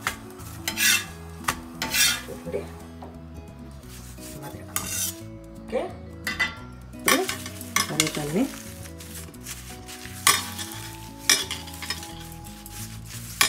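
A metal spatula scrapes and clinks against a flat iron tawa while a parotta is turned and fried, with sizzling from the hot griddle. The scrapes come as sharp strokes every second or so. Faint background music with held, stepping notes runs underneath.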